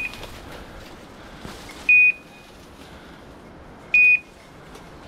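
Dog's beeper collar sounding short, high electronic beeps, one every two seconds, three times in all.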